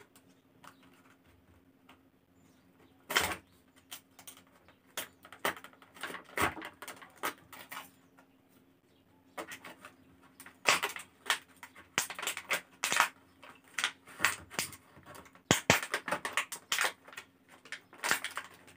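Stiff clear plastic packaging crackling and clicking as it is handled and pulled open, in irregular sharp crackles that start about three seconds in and grow busier toward the end.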